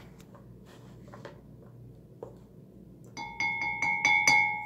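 A few faint clicks, then about three seconds in a quick run of about seven bell-like ringing strikes, about five a second, each on the same pitches, the ringing carrying on between strikes.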